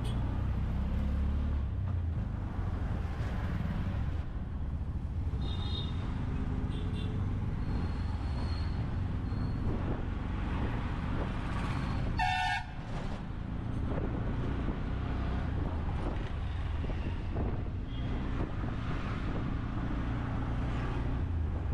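Street traffic with engines running and horns sounding now and then: a few short toots between about five and nine seconds in, and one louder horn blast about twelve seconds in.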